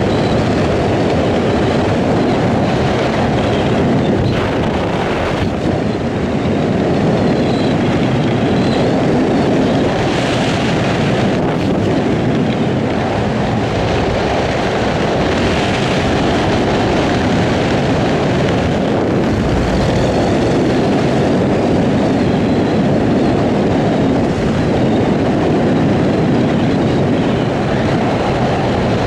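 Wind rushing over a helmet-mounted camera's microphone during a parachute descent under an open canopy: a steady, loud rumble that does not let up.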